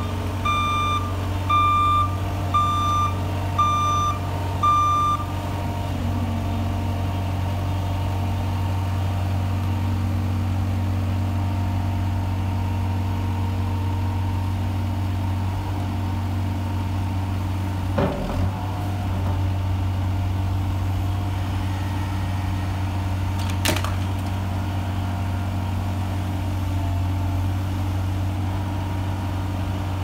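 JCB SSL190 skid steer running steadily with a low engine hum. Its reversing alarm beeps about once a second for the first five seconds, and a single knock comes about 18 seconds in and a sharp click about 24 seconds in.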